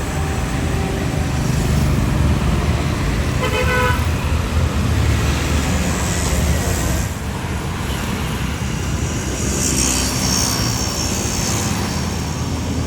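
Steady road-traffic rumble with a short vehicle horn toot about three and a half seconds in.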